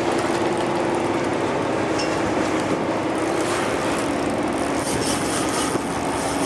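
Fishing boat's engine running steadily under wind and water noise.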